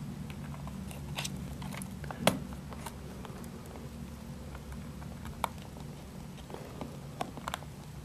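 Scattered small clicks and scrapes of tiny screws being handled and turned into the metal memory-bay cover inside a MacBook's battery compartment, the sharpest click about two seconds in, over a steady low hum.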